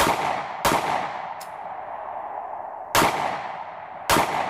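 Four shots from a SCCY compact 9mm pistol, two close together at the start and two more a few seconds later, each followed by a long echo. A short high ping sounds between the first shots and the later pair.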